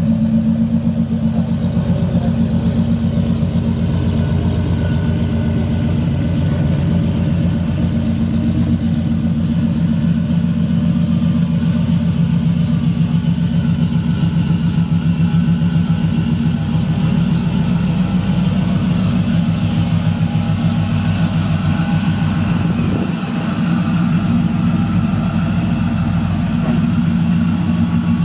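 Supercharged square-body Chevrolet C10 short-bed pickup's engine running at low speed as the truck drives slowly past, a deep steady exhaust note with a fast even pulse.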